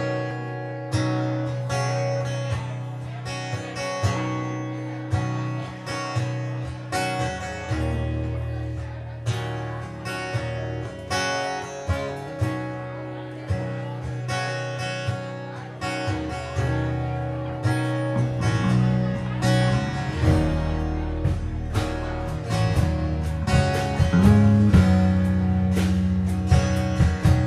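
Live band playing an instrumental passage: two strummed acoustic guitars over an electric bass line, with accented strums in a steady rhythm. The bass grows fuller and busier in the second half.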